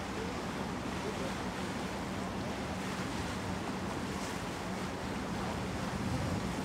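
Steady rush of wind and water around a Hurtigruten coastal ship under way, with a steady low hum from the ship's machinery.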